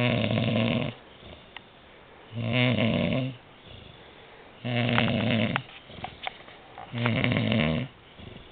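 Loud, regular snoring: four snores, each just under a second long, about two and a half seconds apart, with faint clicks in the quiet gaps between them.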